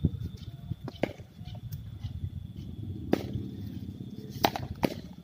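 Sharp knocks of a cricket bat striking hand-thrown balls in batting practice on a concrete net pitch, about five in all, the loudest near the start, about three seconds in and about four and a half seconds in.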